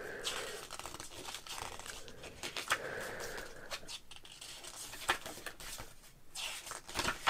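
Glossy paper pages of a CD lyric booklet being turned one after another, with soft rustles and small flicks of paper, and a sharper click near the end.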